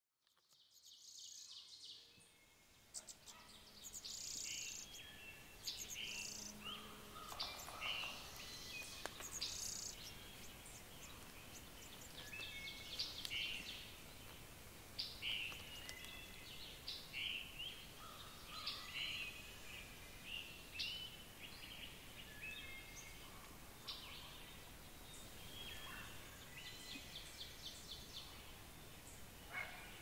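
Several songbirds singing and calling at once, many short high chirps and phrases overlapping over a faint steady hiss, fading in over the first two seconds.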